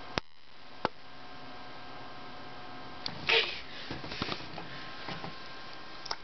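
Two sharp clicks close together, then a loud sniff close to the microphone about three seconds in, followed by light rustling and small clicks over a faint steady hum.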